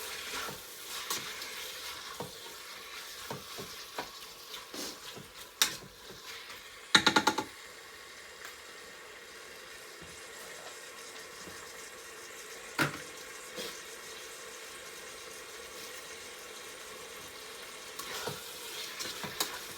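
Sliced chicken breast sizzling in oil in a crock pot's inner pot on its high brown/sauté setting: a steady frying hiss with scattered pops and crackles. A short run of sharp clicks about seven seconds in, a single knock a few seconds later and a few more clicks near the end.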